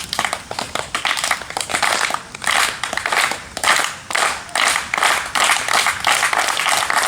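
A crowd making a train sound together: rhythmic bursts of clapping and hissing, about two a second.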